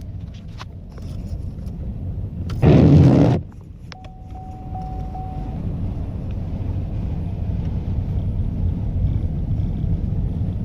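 Steady low rumble of a car's engine and tyres heard from inside the cabin while driving. About two and a half seconds in there is a loud burst of noise lasting under a second, and a little later a brief thin steady tone.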